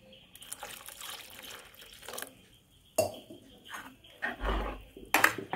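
A metal ladle stirring sambar in a metal pot: the liquid sloshes and swishes, and the ladle knocks sharply against the pot about three seconds in and again near the end.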